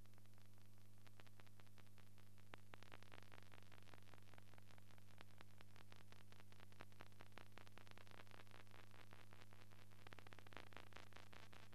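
No soundtrack, only a faint steady low hum with light hiss and scattered faint crackling clicks: the noise floor of a silent newsreel transfer.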